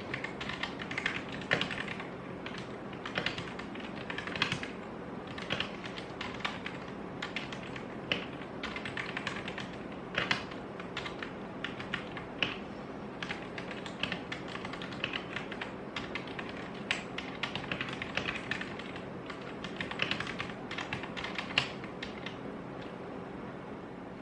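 Typing on a Rexus Daxa M71 Pro mechanical keyboard with stock Gateron Yellow linear switches: a steady, irregular patter of keystrokes, with a few louder clacks among them.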